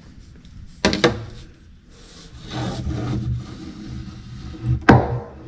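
Two sharp knocks, about a second in and again near the end, with scraping and rubbing between them, as a length of drain pipe is handled and pushed into place in the boat's hull.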